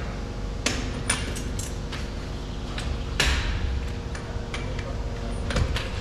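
Torque wrench on a trailer's wheel nuts: a few sharp metallic clicks and clunks as the socket is fitted and the wrench is pulled, with the largest knock about three seconds in. The nuts are being checked to their torque setting.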